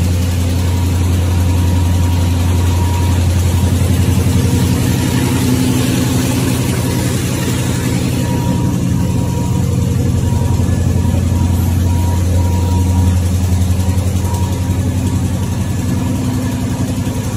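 RZJD-350J V-bottom paper bag machine running at production speed, about 648 bags a minute: a loud, steady machine hum with a fast, even mechanical beat and a faint steady whine above it.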